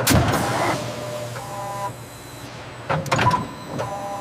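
Automated assembly machine working: a sharp clunk at the start and a few quick clicks about three seconds in, each followed by a short motor whine, over a steady low hum.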